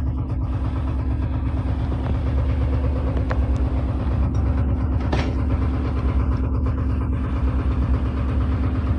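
A boat's engine running steadily with an even low drone. A short click sounds about three seconds in and another about five seconds in.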